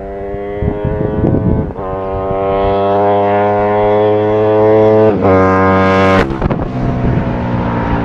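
Ducati 899 Panigale's L-twin engine through Termignoni exhausts, accelerating hard. The pitch climbs steadily and breaks for two upshifts, about two seconds in and again about five seconds in. It is loudest as the bike goes by about six seconds in, then drops in pitch as it pulls away.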